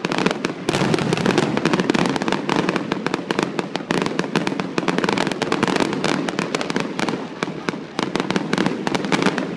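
Fireworks crackling and popping densely, many sharp cracks every second without a break.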